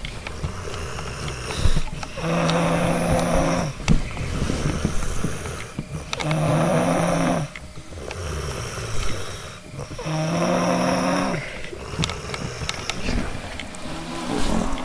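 A person snoring while congested with a cold. Three loud snores come about four seconds apart, each carrying a steady low hum, with quieter breaths between them.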